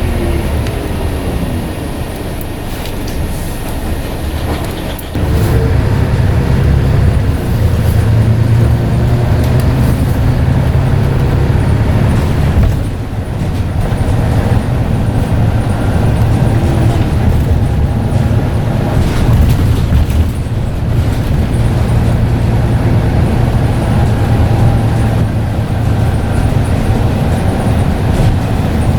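Scania N94UD double-decker bus's diesel engine running under way, pulling harder from about five seconds in, with a brief dip a little before halfway, typical of a gear change in its ZF automatic gearbox.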